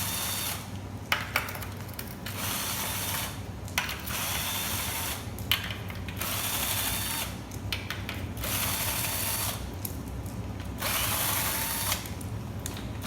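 Cordless power tool running in about half a dozen short bursts of a second or two, each with a thin whine, as it backs bolts out of a transmission's oil pan.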